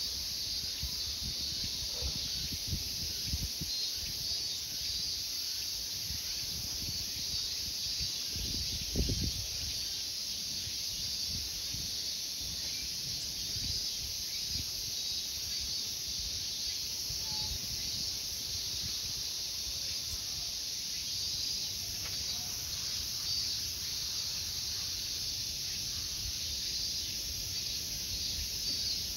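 Steady, continuous high-pitched insect chorus, unchanging throughout. Under it, scattered low knocks and rumbles, the loudest about nine seconds in.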